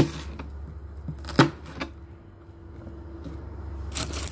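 Paring knife cutting through a red onion and knocking on a plastic cutting board: three sharp knocks, the first at the start and two close together about a second and a half in, over a low steady hum. Papery rustling of onion skin starts near the end.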